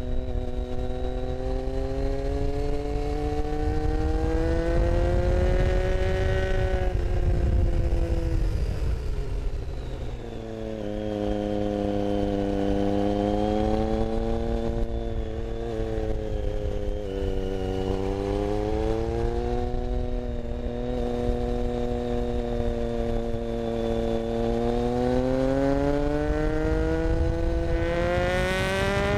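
Motorcycle engine heard onboard, its pitch rising and falling as the rider accelerates and rolls off through a run of bends, with a dip around ten seconds in and a climb again near the end. A steady low rumble lies beneath it throughout.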